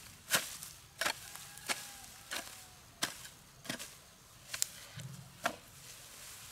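Repeated sharp chopping strokes, eight in a row at a steady pace of about one every two-thirds of a second.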